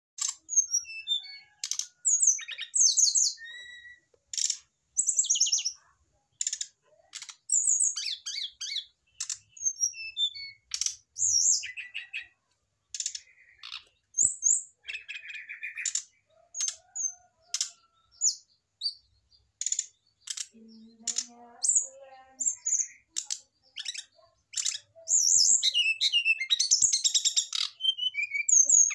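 Brown-chested jungle flycatcher (sikatan rimba dada coklat) calling: bursts of high, quick chirps and short rapid note runs with brief pauses between them, becoming almost continuous near the end. It is a male's calling when a female is set beside him to spur him to sing.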